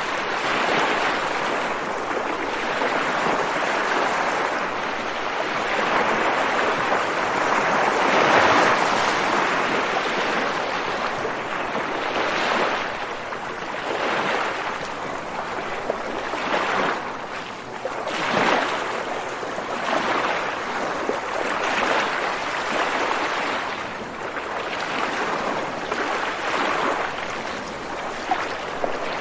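Ocean waves washing in: a continuous hiss of surf that swells and eases every few seconds, with the strongest surge about eight seconds in.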